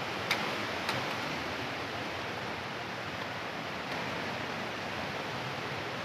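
Steady rushing of a mountain stream, swollen by rain upstream, running as one even noise. Two sharp clicks stand out in the first second.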